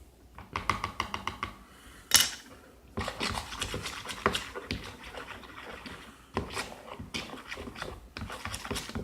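Slime being mixed in a bowl as borax activator is added: quick scraping and clicking strokes of the stir, with one sharp knock about two seconds in.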